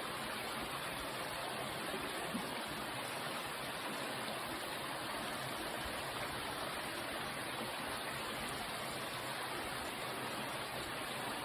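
Creek water running steadily: an even rushing of the stream past the pool.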